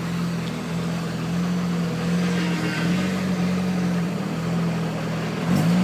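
Turbocharged Mazda MX-5 inline-four engine running at low, fairly steady revs, its pitch wavering slightly.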